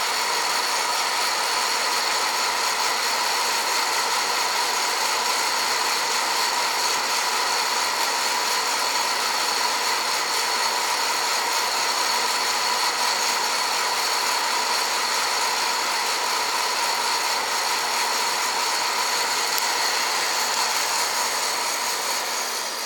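Hot-air popcorn popper roasting coffee beans: its fan and heater run with a steady whir carrying steady high tones, growing slightly quieter near the end.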